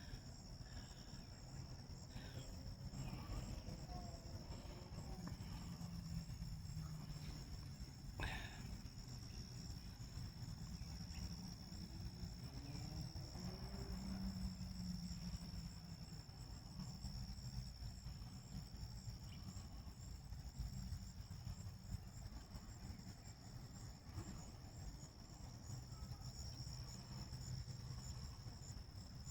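Steady high-pitched trill of insects over a low rumble, with a single sharp click about eight seconds in.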